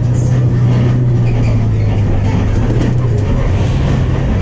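Higer KLG6770G bus engine running steadily under way, heard from inside the passenger cabin as a loud, low, even drone.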